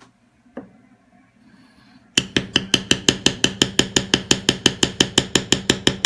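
Mallet rapidly tapping a leather tooling stamp, about seven even strikes a second, starting about two seconds in after a single click.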